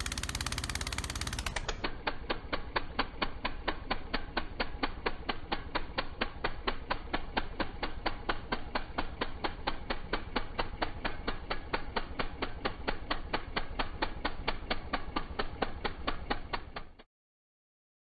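Walk-behind snowblower running, a steady rhythmic mechanical clatter of about four knocks a second that cuts off suddenly near the end.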